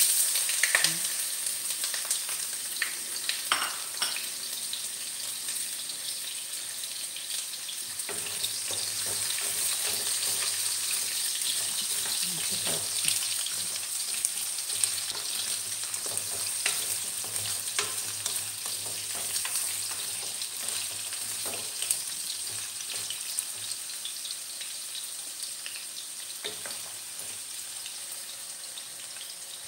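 Cubed carrots and potatoes frying in very hot oil in a nonstick pan: a steady sizzle, loudest right at the start just after they go in, with scattered taps and scrapes of a wooden spatula stirring them.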